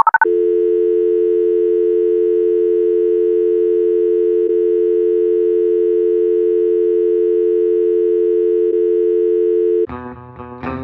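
Telephone dial tone: a steady hum of two low notes, heard just after the last few keypad dialing beeps. It cuts off near the end as guitar music begins.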